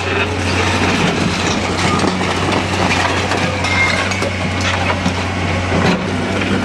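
L&T Komatsu hydraulic excavator's diesel engine running steadily as its arm tears into a house, with scattered cracks and crashes of timber, brick and roofing breaking away and falling.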